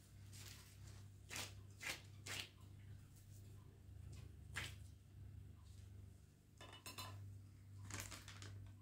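Faint, scattered light clinks and knocks, about six separate taps with a brief rattle near the end, over a steady low hum.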